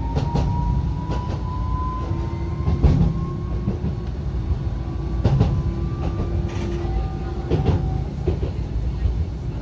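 Tokyu Setagaya Line 300 series tram running, heard from inside the car: a thin traction-motor whine slowly rising in pitch over a steady rumble, with scattered sharp clacks from the wheels on the rails.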